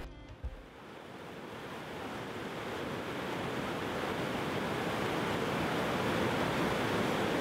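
Steady rushing of whitewater from a flooded class 3 rapid, fading in over the first couple of seconds and then holding steady.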